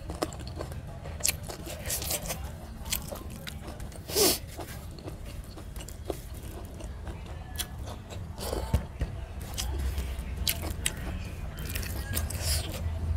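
Close-up eating sounds: a person chewing rice and chicken curry, with small mouth clicks, while fingers scrape grains of rice across a steel plate. There is one louder mouth noise about four seconds in.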